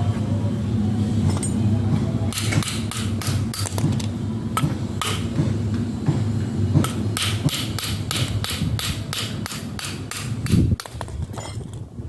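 Quick runs of hammer blows, about three to four strikes a second in two bursts, over a steady low hum that cuts off suddenly near the end.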